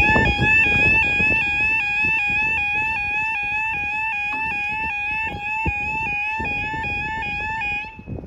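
Level crossing yodel alarm sounding its fast, repeating two-tone warble while the barriers lower, then cutting off abruptly near the end.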